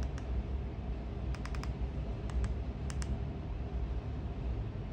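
Plastic buttons on a TV-box remote control being pressed, a few sharp clicks with a quick run of them about a second and a half in, over a steady low hum.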